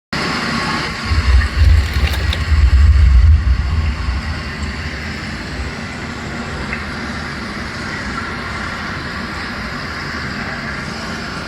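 A low rumbling drone that swells loudest for a few seconds about a second in, then settles into a steady, noisy hum. These are the 'strange sounds' heard in the park that day.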